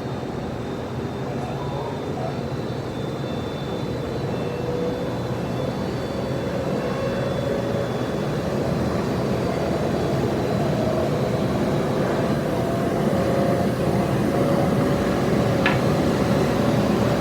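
Steady rumble of a moving vehicle, slowly growing louder, with a faint tone that gradually rises in pitch.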